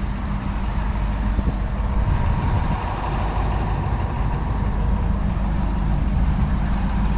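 Ford F450's 6.7-litre Power Stroke V8 diesel idling steadily.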